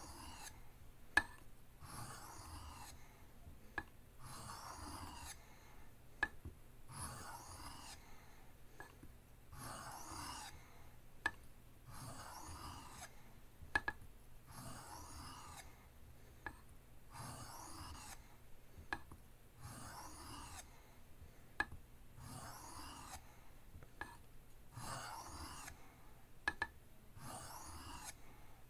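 Knife blade drawn across an oiled Arkansas sharpening stone with light pressure: a steady run of soft gritty strokes, about one every second and a half, with a light click every couple of seconds as the blade is set back on the stone.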